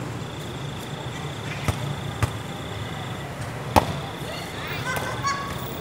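A volleyball being hit three times during a rally: three sharp smacks, the last and loudest a little past the middle, over murmuring voices from the court.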